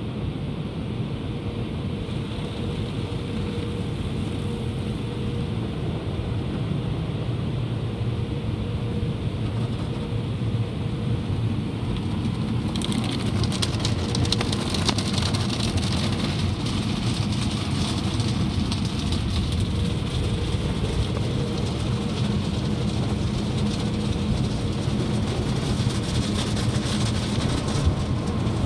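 AVW tunnel car wash heard from inside the car: a steady low rumble of the wash machinery, with water spraying and brushes on the glass and body. About thirteen seconds in, a louder hiss starts as the cloth wash strips and brushes sweep over the windshield with spray.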